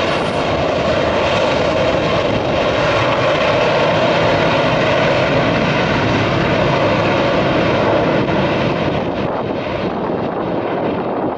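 Airbus A330's twin turbofan engines on the takeoff roll: a loud, steady jet roar with a whine running through it, easing slightly near the end as the airliner passes.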